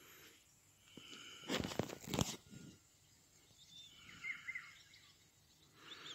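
Outdoor quiet broken by a short crunching rustle about a second and a half in, the loudest thing here, then a few faint bird chirps around four seconds in.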